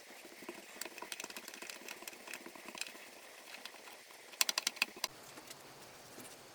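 Light tapping and clicking of small hand tools working on an old wooden box and its fittings, with a quick run of about six sharper clicks past the middle.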